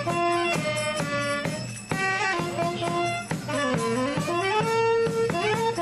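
Clarinet playing a lively folk melody over steady bass drum beats, about two strokes a second. About four seconds in, the clarinet slides down in pitch and back up.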